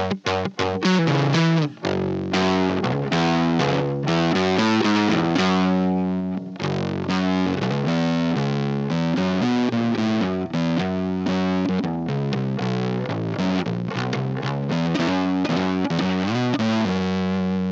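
Precision bass played with a pick through an Anvil Audio Fuzz, a germanium-transistor fuzz pedal with the fuzz fully up: a run of quickly changing distorted notes, ending on a longer held note.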